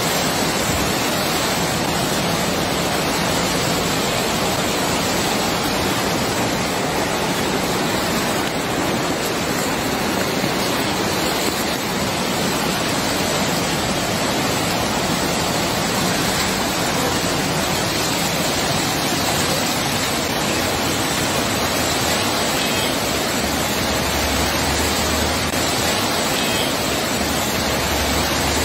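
Muddy floodwater rushing in a torrent down a street: a steady, loud rush of churning water.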